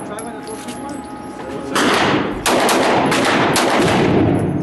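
Gunshots: several sharp reports, the loudest two just under two seconds in and about half a second after, each trailing off in a long echo.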